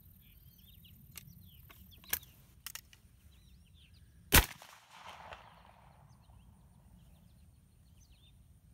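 A single 12-gauge shotgun shot, about four seconds in, firing a handloaded shell of quartered bottle-cap shot; the report trails off in an echo for about a second and a half. A few sharp clicks come before the shot, and birds chirp throughout.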